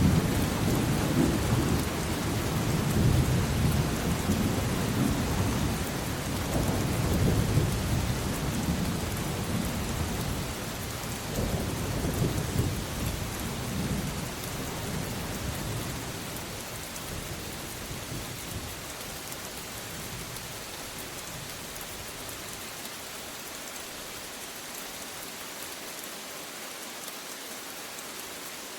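Steady heavy rain with a long roll of thunder rumbling through the first half, which slowly dies away, leaving only the even hiss of the rain.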